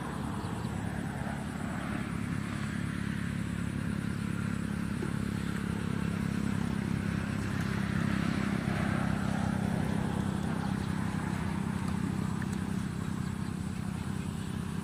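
A small engine running steadily throughout, swelling a little in the middle.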